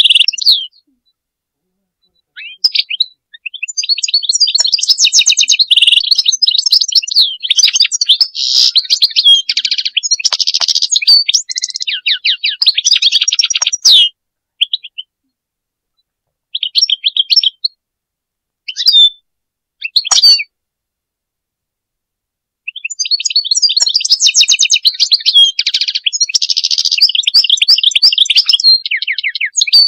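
European goldfinch singing: long phrases of rapid, high twittering notes, broken by a few short snatches and silent pauses, with a full phrase starting again near the end.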